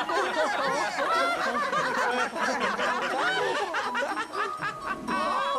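Many high-pitched cartoon voices laughing at once in a dense, overlapping clamor.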